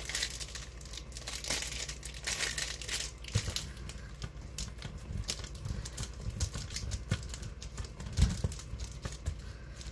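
A block of cheese shredded on a stainless steel box grater: repeated rasping strokes, with the plastic wrapper on the cheese crinkling.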